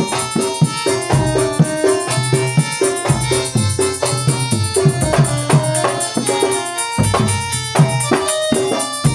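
Traditional Javanese folk dance music: hand drums beating a quick, steady rhythm under held instrumental tones.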